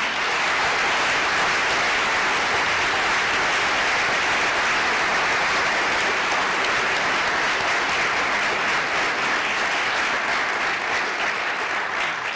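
Audience applauding steadily after a speech, easing off near the end.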